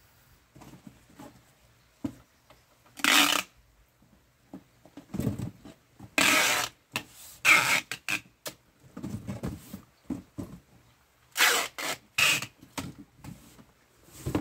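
Packing tape being pulled off a roll in several short pulls to seal cardboard boxes. Between the pulls there are scuffs and rustles of cardboard being handled.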